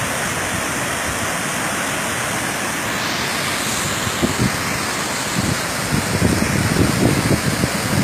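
Waterfall plunging into a rocky pool: a steady, even rush of falling water, joined from about halfway through by irregular low buffeting of wind on the microphone.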